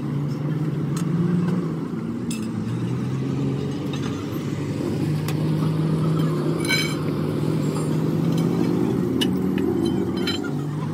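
Steady low rumble of motor vehicle engines running nearby, with a few sharp metal clinks of hand tools and bars against the truck's wheel hubs.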